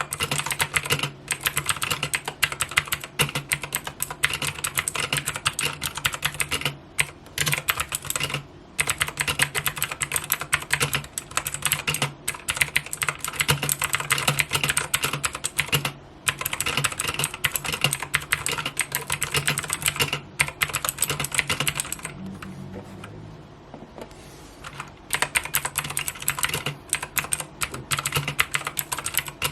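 Continuous fast typing on an Ajazz AK33 mechanical keyboard with clicky blue switches, a dense run of key clicks broken by a pause of about three seconds late on.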